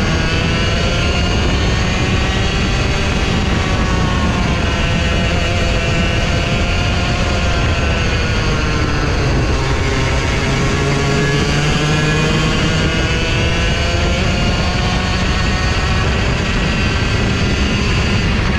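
Racing go-kart's engine heard onboard, running hard at high revs. Its pitch falls and climbs several times as the kart slows for corners and accelerates out, with the deepest dip about halfway through.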